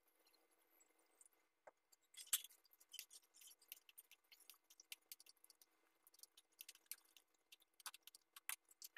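Faint clicks and scrapes of a wooden spatula against a pan as vegetables in sauce are stirred, with a sharper knock about two seconds in.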